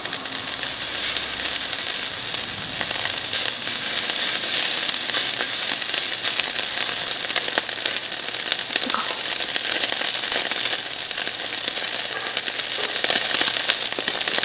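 Slices of raw beef sizzling on a hot slotted stainless-steel tabletop grill: a steady hiss peppered with many small crackling pops.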